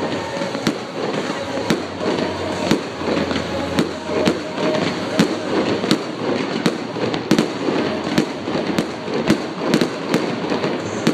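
Fireworks display: sharp bangs and cracks of aerial shells going off about twice a second, over a steady hiss.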